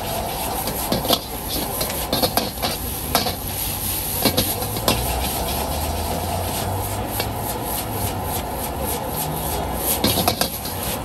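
A metal ladle scrapes and knocks against a wok, several times a second, as egg noodles are stir-fried and tossed, over the steady rush of a gas burner flame and sizzling.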